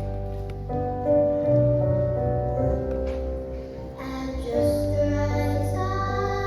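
Music: sustained chords over a steady bass line, with singing voices coming in about four seconds in.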